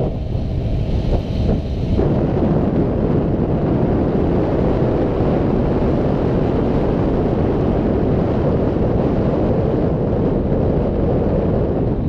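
Wind buffeting the microphone of a bicycle-mounted camera while riding, a loud, steady low noise with no break.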